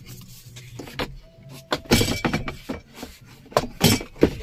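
Plastic dashboard trim being handled and pulled apart: a run of irregular knocks, clicks and clatters, loudest about two seconds in and again near the end.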